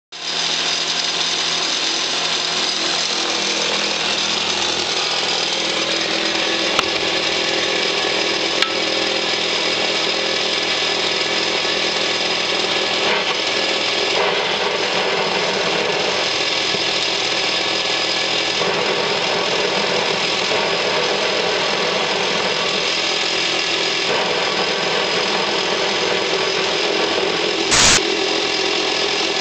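Wilesco D365 model steam roller's oscillating-cylinder engine running steadily on compressed nitrous oxide fed by hose from a bottle instead of steam. A brief louder burst comes near the end.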